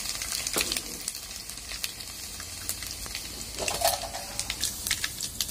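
Garlic slivers and whole spices sizzling in hot oil in a steel kadai, a steady sizzle with many small crackling pops: the tempering (tadka) stage. A brief tone stands out about four seconds in.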